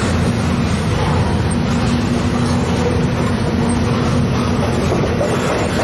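Double-stack container freight train passing close by: loud, steady noise of its wheels running on the rails.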